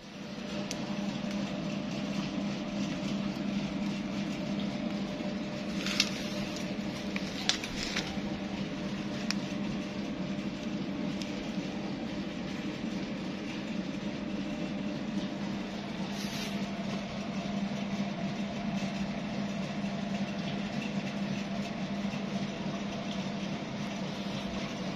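A steady low mechanical hum, like a motor or machine running, with a few sharp clicks scattered through it.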